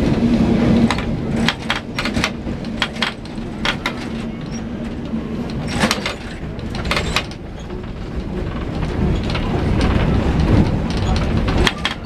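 Lisbon tram rolling on its rails, heard from on board: a steady low rumble with a low hum that cuts out about a second in, and scattered sharp clacks and knocks from the wheels and car body in several bunches.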